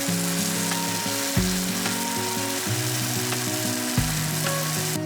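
Food sizzling steadily in a frying pan under background music, the sizzle cutting off abruptly at the end.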